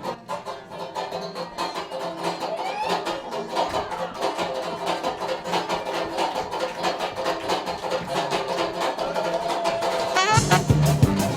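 Brass fanfare band playing a tune over a quick, steady drum beat, growing gradually louder. About ten seconds in, the whole band comes in much louder, with heavy bass drum beats.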